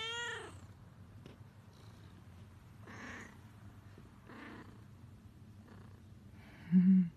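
Tabby cat meowing once at the start, a single call that rises and falls in pitch. Soft faint sounds follow, and near the end comes a brief, louder low-pitched sound.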